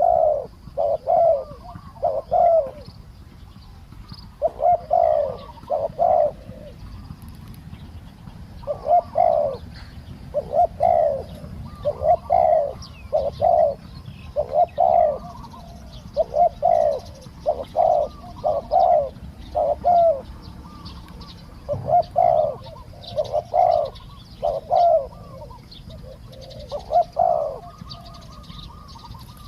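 Spotted doves cooing over and over, in short phrases of two or three low, rolling coos repeated every second or two.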